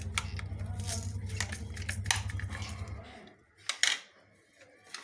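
Clicks and clatter of a plastic kitchen utensil with metal tines being handled over a tray of chopped onion, over a steady low hum that stops about three seconds in. Two sharp knocks near the end are the loudest.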